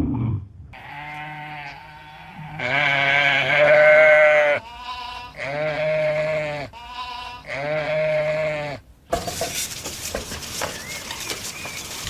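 A farm animal calling four times in long, drawn-out pitched calls, the second call the loudest. About nine seconds in, the calls give way abruptly to a hissy outdoor background with faint chirps.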